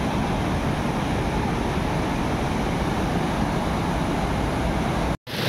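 Fast mountain river rushing over boulders in white-water rapids: a loud, steady roar of water. It cuts out for an instant near the end.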